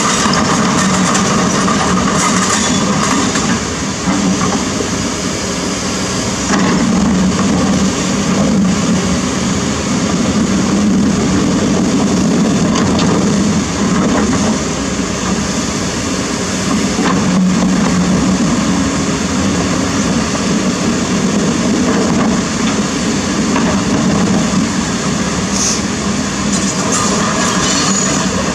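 Kobelco SK200 hydraulic excavator's diesel engine running steadily under load as the machine digs among river stones, with rushing water and a few knocks of rock.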